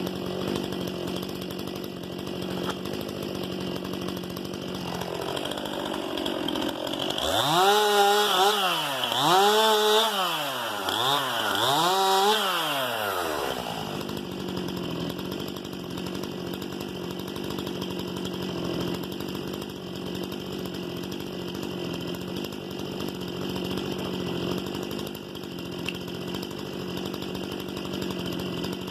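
Stihl MS 261 C-M two-stroke chainsaw running steadily, its engine speed rising and falling four times about seven seconds in, the loudest part, before it settles back to a steady note.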